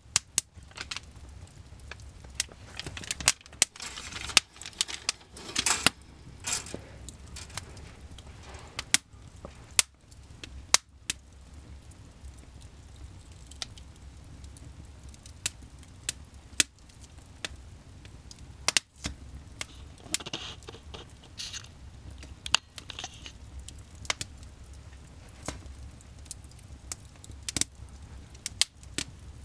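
Wood fire burning in a fireplace, crackling with sharp, irregular pops and two short spells of hissing.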